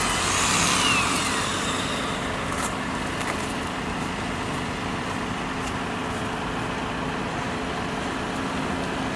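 Steady engine and road-traffic noise with a low, even hum. In the first second or so a vehicle's sound falls in pitch as it passes.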